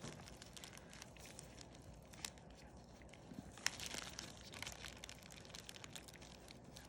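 Faint crinkling of a plastic colostomy pouch being handled, with a few light ticks scattered through.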